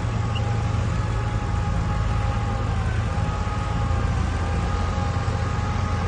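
Heavy diesel engine of earthmoving machinery running steadily under load, with a high whine above the rumble that dips briefly about three seconds in.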